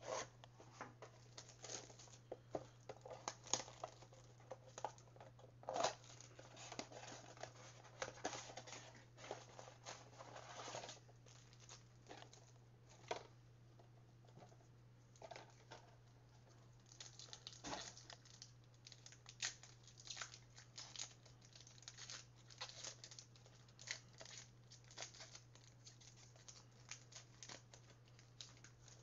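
Panini Mosaic trading-card pack wrappers being torn open and crinkled, with cards being handled: irregular rips and crackles, busiest about six to eleven seconds in and again in the second half. A steady low hum runs underneath.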